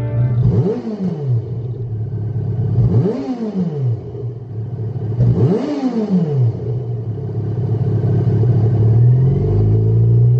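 Yamaha XJ6 Diversion's 600 cc inline-four running through its stock exhaust: idling and blipped three times, each rev rising and dropping back within about a second, then idling on.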